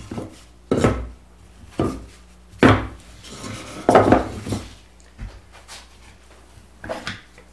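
Pine 2x4 boards knocking against each other and against the wooden workbench as they are lifted and stacked. There are four loud wooden knocks in the first four seconds, then several lighter taps.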